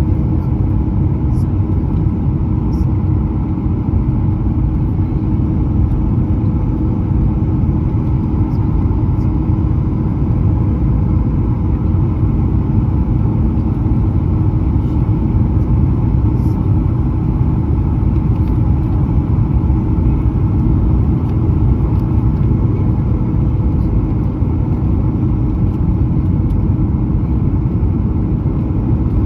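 Steady loud rumble of a Boeing 737-900's CFM56 jet engines and rushing air, with a few faint steady tones through it and no sudden changes.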